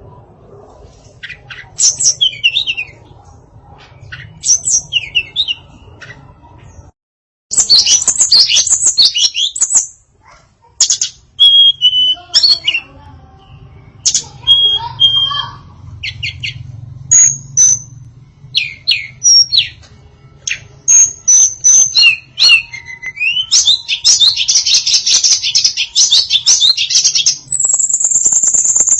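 Female tledekan songbird singing a varied song of short chirps, trills and whistles, with a dense, continuous warbling phrase near the end.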